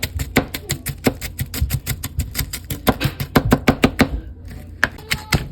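A cleaver chopping rapidly on a cutting board, about five sharp knocks a second, with a short pause about four seconds in.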